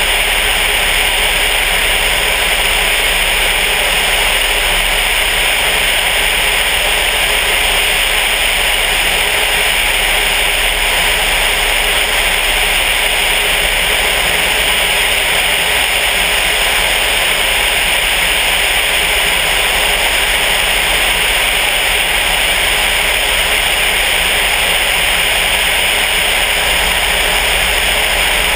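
Loud, steady rush of airflow over the microphone of a camera mounted outside the Sonex light aircraft in flight, with the drone of its VW-based engine underneath.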